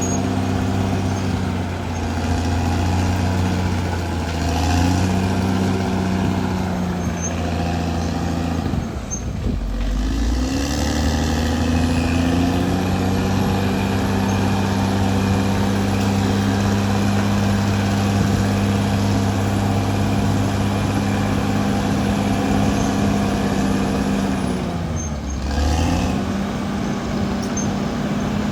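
Caterpillar D6R XL bulldozer's diesel engine running steadily under load, its pitch dropping sharply and recovering twice, about a third of the way in and near the end, as the engine lugs down and picks back up.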